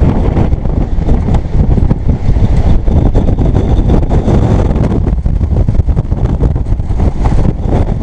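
Squall-force wind buffeting the microphone: a loud, unbroken low rumble that swells and drops with the gusts.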